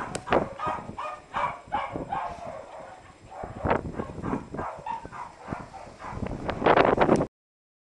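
Dogs barking in short repeated calls, several a second at first and then more spaced out. Near the end, wind rushes over the microphone before the sound cuts off abruptly.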